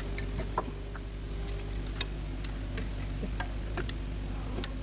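Nissan Patrol's ZD30 four-cylinder turbodiesel engine idling steadily, with irregular sharp clicks and taps over it.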